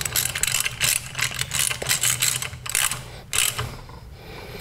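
Socket ratchet clicking in repeated strokes as a bolt on a three-phase induction motor's casing is tightened; the clicking stops about three and a half seconds in.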